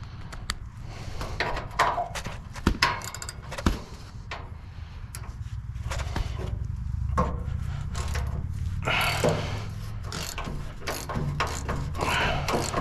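Tools clicking and knocking against the metal of a welder/generator while a stuck bolt is worked loose, over a steady low hum, with short rasping bursts about nine and twelve seconds in.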